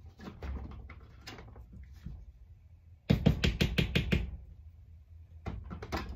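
Quick run of sharp taps on a small tool as the trigger housing pin is driven into a Glock 19's polymer frame, with a few more taps near the end and softer handling of the parts before them.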